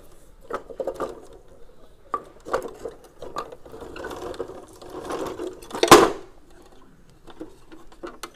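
Wooden parts of a handmade miniature tipper lorry clicking and knocking as its tipping bed and chassis are worked by hand: scattered clicks, a denser rattling stretch around four to five seconds in, and the loudest knock at about six seconds.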